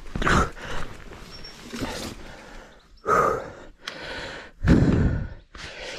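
A mountain biker groaning and breathing hard after a crash, in three loud bursts, the strongest about five seconds in.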